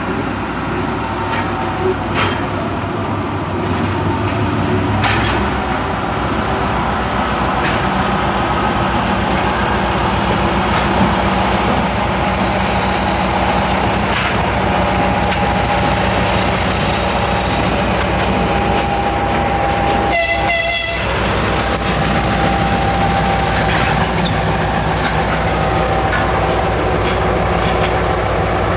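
Twin-section 2M62 diesel locomotive running, with the steady low drone of its two-stroke V12 diesel engines. About twenty seconds in comes a short horn blast of about a second.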